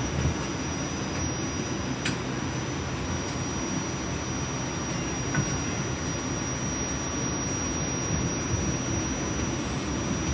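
RTA Blue Line light-rail car running along the track, heard as a steady low rumble with a constant thin high whine over it. A faint click comes about two seconds in.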